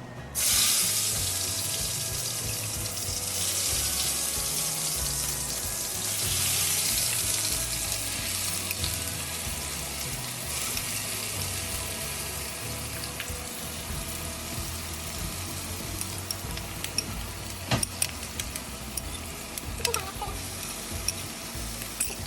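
Marinated chicken hitting hot oil in a pot: a loud sizzle starts suddenly about half a second in and goes on as steady frying. Two sharp knocks come near the end.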